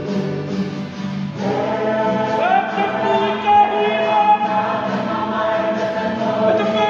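Kapa haka group singing a waiata together, many men's and women's voices in unison, with the full group coming in about a second and a half in.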